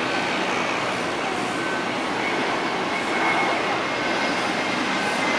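Bombardier DHC-8 Q400 turboprop airliner taxiing, its two Pratt & Whitney PW150A engines and propellers running at low taxi power: a steady rush with a faint high whine.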